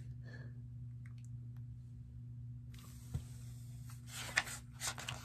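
Paper rustling and clicks from a picture book's pages being handled and turned, with a few sharp rustles about four seconds in, over a steady low hum.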